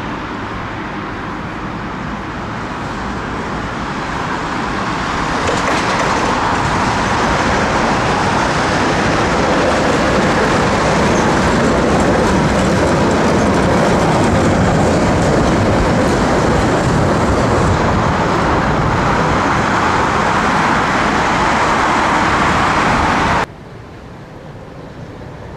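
A tram running along street rails, its wheel and track noise building over several seconds and staying loud. Near the end the sound cuts off suddenly and quieter street noise follows.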